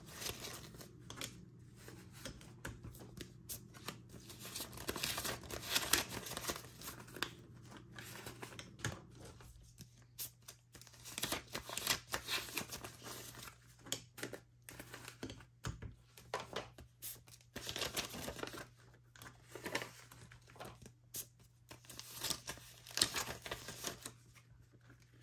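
Paper banknotes rustling and crinkling as they are leafed through and sorted by hand, in short irregular bursts, over a faint steady low hum.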